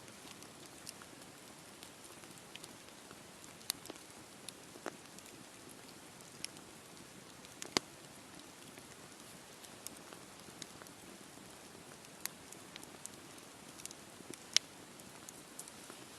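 Wood campfire burning with a faint steady hiss and irregular sharp crackles and pops, two of them louder, about halfway through and near the end.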